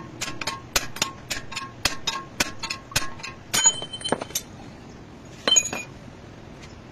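Hammer tapping a steel drift about three and a half times a second to drive the wheel bearing out of a car's steering knuckle, each blow with a short metallic ring. The tapping stops about three seconds in, followed by a few louder ringing clinks of loose steel parts.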